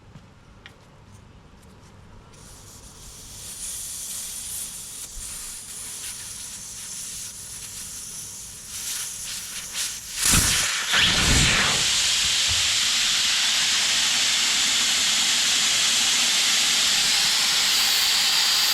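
Air rushing out of a car tyre through the open valve stem as the valve core is unscrewed: a hiss that starts faint and builds, then turns into a loud steady high hiss after a couple of heavy thumps about ten seconds in.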